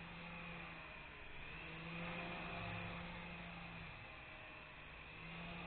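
Syma S107G coaxial toy helicopter flying, its small electric motors and twin rotors giving a faint whir. The low hum wavers in pitch and level and drops out briefly twice.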